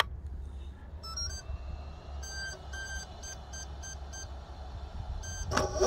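A battery isolator switch clicks on, then the electric motor's speed controller (Hobbywing ESC) plays its power-up tones: a short stepped tune about a second in, followed by a string of short beeps. Near the end the motor starts up with a steady whir.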